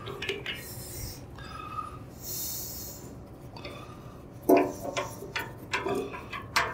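Bandsaw's sheet-metal blade guard being handled and worked by hand: a few light clicks, then a run of sharp knocks and rattles in the second half, the first of them the loudest.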